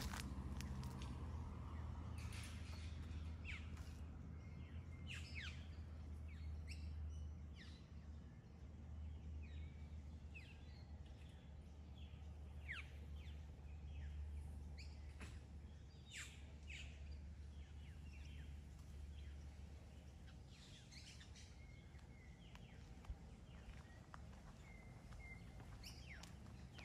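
Faint birds chirping and calling in short, scattered notes over a steady low hum.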